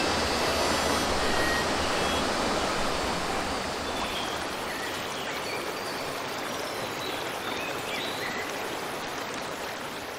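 Shallow forest stream running over rocks, a steady rushing hiss that slowly gets quieter, with a few faint high bird chirps from about four seconds in.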